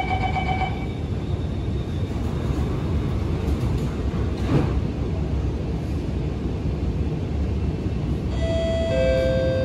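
Running rumble of an Alstom Movia R151 metro train heard from inside the car as it pulls away. The last of the door-closing beeps ends within the first second. About eight and a half seconds in, a two-note chime starts, the chime that comes before the next-station announcement.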